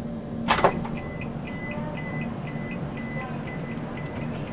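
Automatic door of a Rajdhani Express coach opening: a short sharp burst of noise as it releases, then rapid, evenly spaced warning beeps over a steady low hum while it opens.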